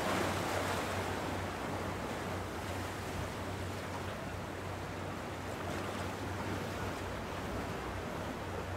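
Sea waves washing steadily on the shore, with a steady low hum underneath.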